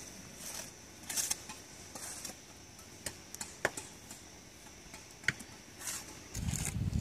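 Mason's steel trowel scraping and tapping on concrete blocks and mortar: scattered short scrapes and clicks. A low rumble comes in near the end.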